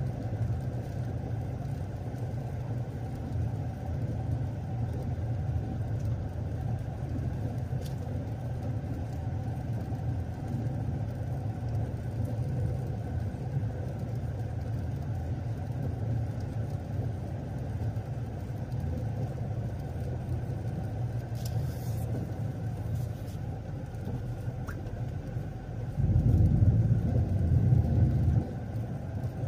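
Steady low rumble of a car driving, with a louder stretch of about two seconds near the end.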